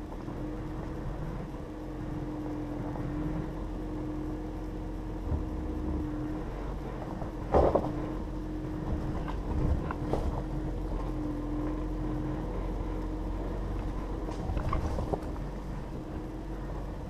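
A 2015 Jeep Grand Cherokee crawling up a rough dirt trail: steady engine and tyre noise with a constant hum. Occasional knocks and thumps come as it jolts over the uneven ground, the loudest about seven and a half seconds in.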